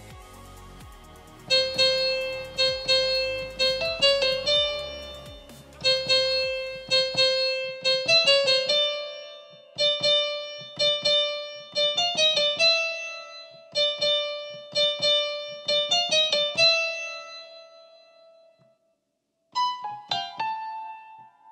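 Piano-like software instrument played from an Akai MPK mini MIDI keyboard controller through a laptop: a slow melody of single struck notes that ring and fade. There is a short pause near the end, then two higher notes.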